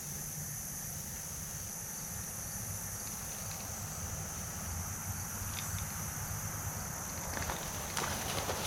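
Crickets and other insects trilling in a steady high chorus over a low steady rumble, with a few faint ticks and rustles near the end.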